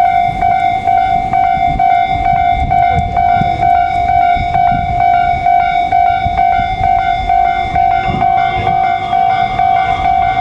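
Japanese railway level crossing warning bell ringing in a quick, even run of electronic dings over a low rumble, signalling an approaching train. About eight seconds in, more noise joins underneath.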